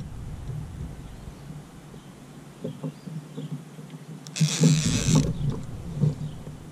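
Abu Garcia 6500 baitcasting reel being worked against a big blue catfish on a heavily bent rod, with uneven low mechanical sounds and one loud rasp of just under a second about four and a half seconds in.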